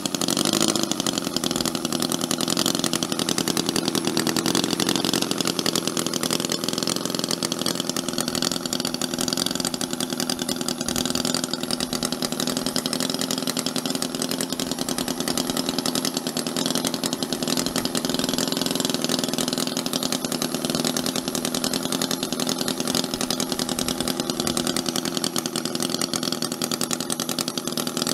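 Seal Major 30cc four-cylinder side-valve model petrol engine running steadily without a silencer, a raucous, even exhaust beat.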